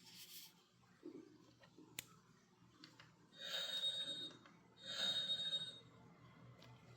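A toy sword's built-in effects going off twice, each time for about a second: a tinny hiss with a steady high whine, after a faint click.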